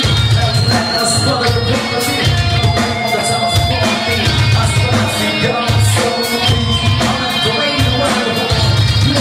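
Live rock band playing a song: electric guitars, bass and a drum kit keeping a steady beat, with a lead singer at the microphone.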